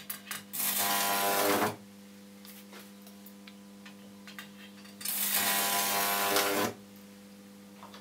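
High-voltage output of a microwave oven transformer arcing across its electrodes to a nail: two harsh, buzzing crackles, each a second or more long and about four seconds apart. Under them runs the transformer's steady mains hum.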